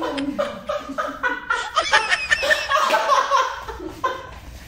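People laughing hard in quick repeated bursts, dying down near the end.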